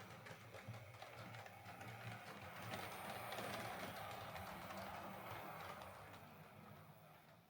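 Hornby OO gauge Battle of Britain Class model steam locomotive running on track, now working again after its broken tender wires were repaired: a faint motor whirr with the light clicking of wheels on the rails, fading near the end.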